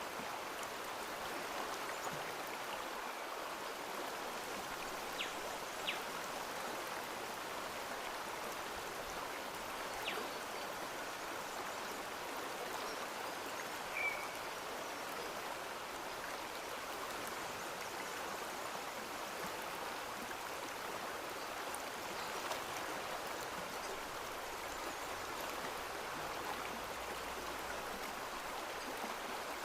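Running water, a stream flowing steadily, with a few faint ticks and one short high chirp near the middle.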